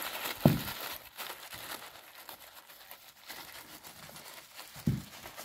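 Plastic wrapping crinkling and rustling as a wrapped pack of new piston rings is handled. Two short dull thumps come in, one about half a second in and one near the end.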